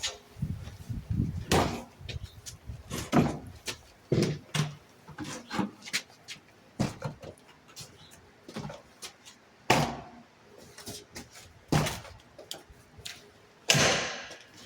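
A door and its frame being knocked and shifted while being fitted into the opening: a string of separate, uneven knocks and thumps, with a longer noisy burst near the end.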